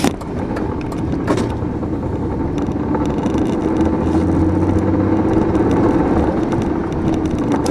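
Truck engine pulling steadily in four-wheel drive, heard from inside the cab, with tyre noise through heavy wet slush; the engine note grows a little stronger through the middle and eases near the end.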